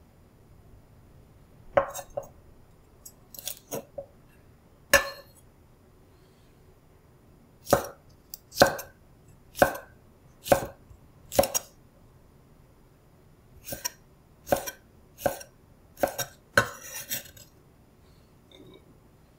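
A kitchen knife slicing green beans on a wooden cutting board: separate sharp knocks of the blade on the board, about one a second. A few irregular knocks come first, and a short scrape near the end as the cut pieces are gathered off the board.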